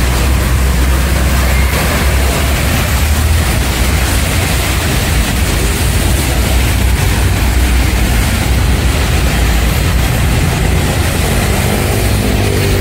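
Street traffic on rain-wet asphalt: tyres hissing through the water and car engines passing, over a steady low rumble. A motorcycle engine comes through near the end.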